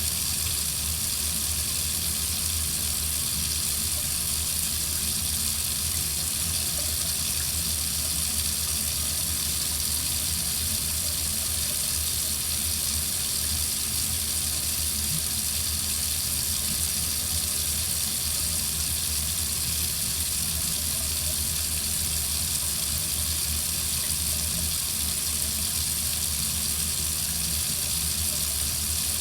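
Water running steadily from a faucet into a sink, a constant even hiss with no breaks.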